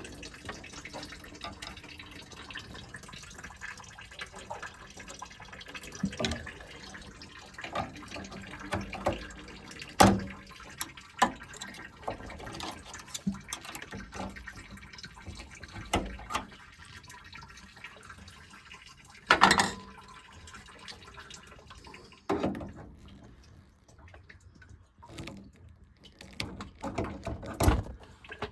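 Water trickling and dripping as a Vaillant ecoTEC boiler drains through its drain point, with scattered knocks and clicks of tools and parts being handled. The running water dies away about three-quarters of the way through, leaving only the knocks.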